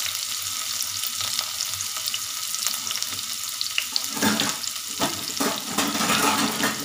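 Chopped onion frying in hot oil with mustard seeds, cumin and curry leaves in a kadhai: a steady sizzle with fine crackling, turning louder and busier from about four seconds in.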